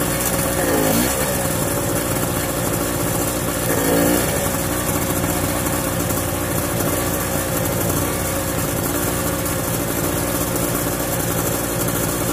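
Storm Cat portable generator's 2 hp two-stroke engine running at a steady speed, its pitch dipping briefly twice and recovering as a 12-volt signal is fed back into the outlet to flash the field. The generator takes the load of the signal but still gives no output.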